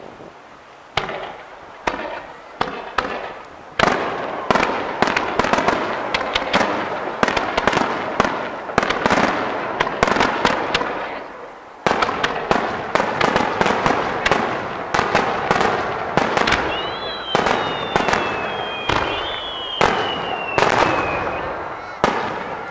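Aerial firework shells bursting one after another, sharp bangs that begin about a second in and soon come thick and overlapping, each with an echoing tail. Near the end a high, falling whistle sounds twice.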